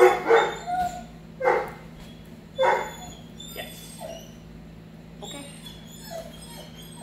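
Puppy yipping: several loud short yips in the first three seconds, then fainter yelps and whimpers.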